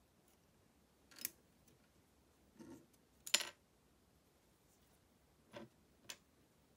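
Scattered sharp clicks and taps of hard plastic model-kit parts being handled and fitted together, five in all, the loudest about three and a half seconds in.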